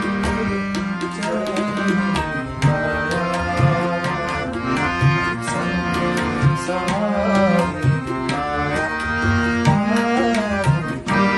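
Rina harmonium with two banks of Khalsa reeds and a bass coupler playing held chords and melody, with tabla accompaniment: crisp strokes on the treble drum and low, bending strokes on the bass drum.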